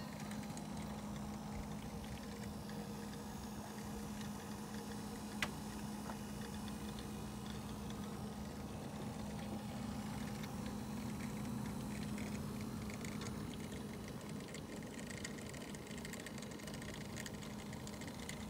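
Mercedes 350 GD's OM603 turbodiesel straight-six idling steadily, heard close up in the engine bay. One light, sharp click about five seconds in.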